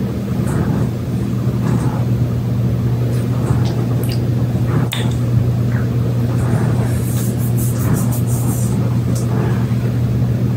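A steady low hum runs throughout, with a few faint clicks and a brief patch of light ticking about two-thirds of the way in.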